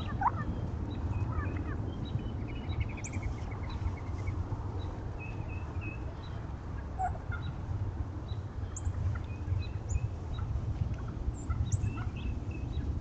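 A flock of wild turkeys making scattered short calls, including a quick run of notes a few seconds in, over a steady low rumble.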